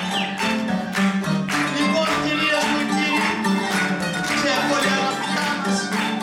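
Live dance tune played on plucked strings by a small folk band: oud, with kanonaki and guitar.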